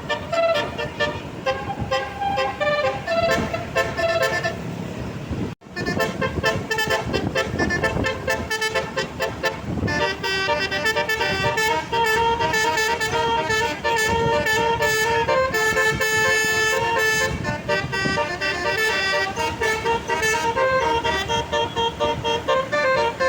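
A bus's basuri horn, a multi-tone musical horn, plays a melody note by note, some notes short and some held longer. The sound breaks off abruptly for an instant about five and a half seconds in.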